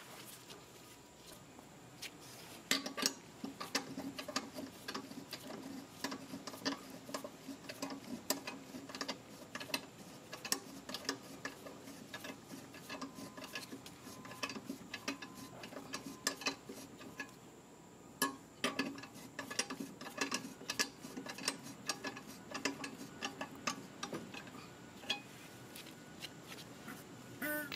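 Hand socket ratchet clicking in quick runs of ticks as the lawn mower blade's mounting bolt is run down into the blade adapter, with small metal clinks from the blade being handled.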